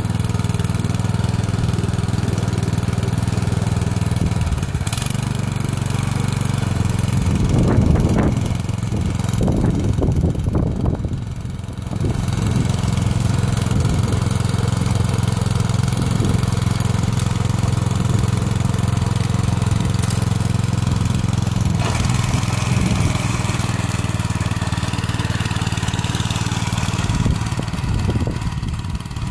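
Honda tiller's small petrol engine running just after starting, at a steady, even note. Between about 7 and 12 seconds in the engine sound turns uneven as the tiller is worked, then settles back to a steady run while the tines churn the soil.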